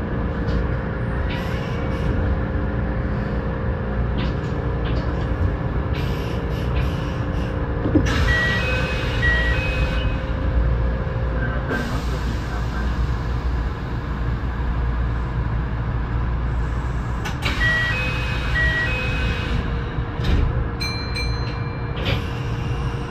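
Kintetsu 6820 series electric train running along the line, heard from inside the car: a low rumble of wheels on rail under a steady motor hum. Twice, a pair of short high beeps sounds.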